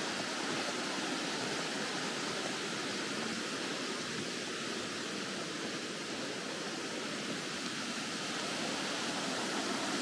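A river flowing: a steady, even noise of running water.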